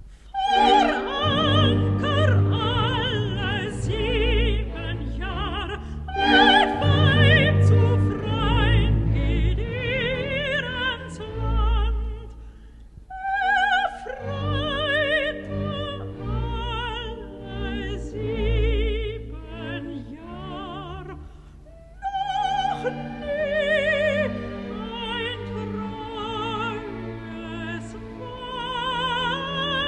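Operatic soprano singing with a wide vibrato, accompanied by a symphony orchestra. The sung phrases swell and break off with short pauses between them, about every six to eight seconds.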